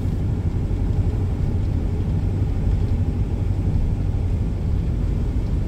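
Steady low engine and road rumble inside the cab of a Volvo FH heavy truck driving on a wet street.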